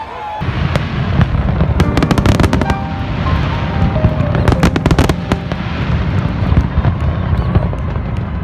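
Fireworks display going off: a dense, continuous low rumble of shell bursts, broken by clusters of sharp crackling cracks about 1 to 2 seconds in and again around 5 seconds.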